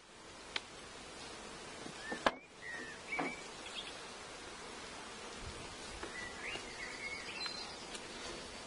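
Honeybees buzzing around an open hive over a steady outdoor hiss, with a few short bird chirps about two to three seconds in and again after six seconds. A sharp click a little over two seconds in is the loudest sound.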